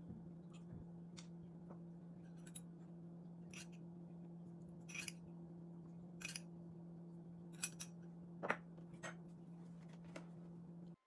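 A steady low hum with about a dozen small sharp clicks and ticks scattered through it, the loudest about eight and a half seconds in.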